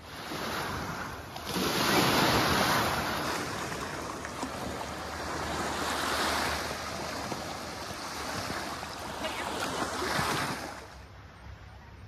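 Small lake waves washing onto a sandy beach, swelling and easing about every four seconds, cutting off near the end.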